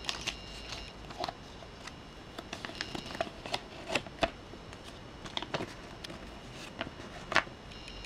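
A folded paper instruction leaflet being handled and unfolded: irregular crinkles and crackles of the paper, the loudest near the end.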